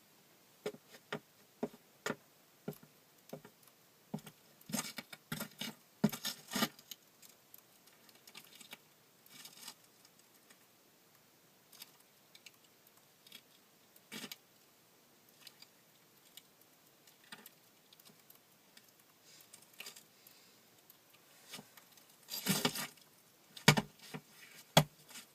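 Foley props being handled and dropped: scattered small clinks and jangling clatters of glass-like pieces. Near the end comes a louder clattering crash and a few heavier knocks, the prop head falling.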